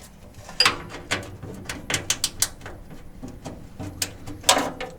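Scattered clicks and light knocks of small hardware being handled as a P-clamp and hex screw are fitted, with a louder knock about four and a half seconds in.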